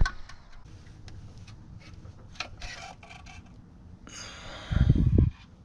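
Distributor cap being handled and pulled off an engine's distributor: a sharp click, scattered small clicks, then a louder rubbing scrape with low thumps about four seconds in.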